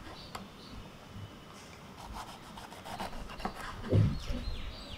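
Chef's knife slicing a green bell pepper into thin rings on a bamboo cutting board: a run of short, crisp cutting strokes with the blade meeting the wood, and one heavier knock on the board about four seconds in.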